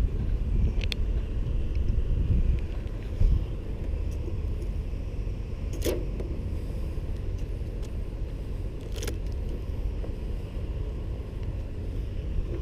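A steady low rumble with a few short sharp clicks.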